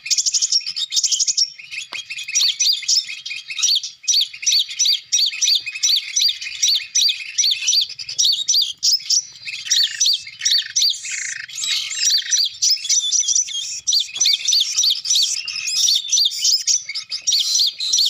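Sunbird (sogon) calls played from a speaker as a trapping lure: rapid, evenly repeated high chirps, several a second, with a run of lower notes near the middle.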